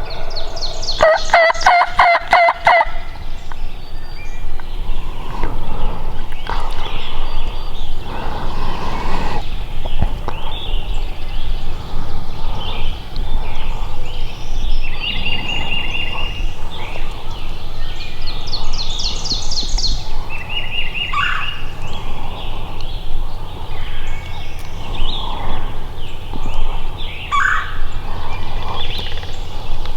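Wild turkey gobbling: a rapid rattling gobble about a second in, and another higher, fainter one near the middle, with short whistled songbird notes in between.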